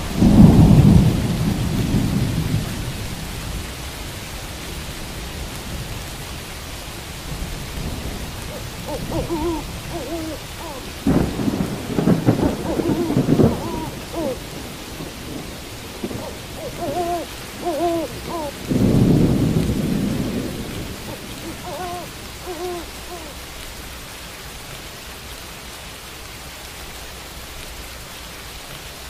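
Steady rain with thunder, loudest as it rumbles in the first couple of seconds and rumbling again twice later. An owl hoots a few times in short pairs of notes.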